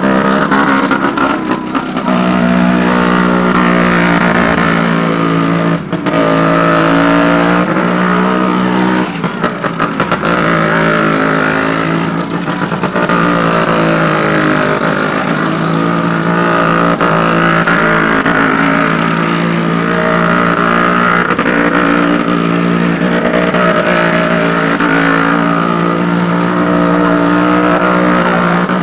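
Engines of vehicles riding the wall of a Well of Death motordrome, running loud and continuously, the pitch swelling and dipping every couple of seconds as they circle.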